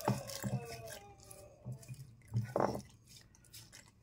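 Ground spices being scraped with fingers out of a stone mortar into a plastic blender jar: dull knocks of the stone against the jar, the loudest just after the start and about two and a half seconds in, with scrapes and small clicks between. A faint drawn-out call sounds in the first second.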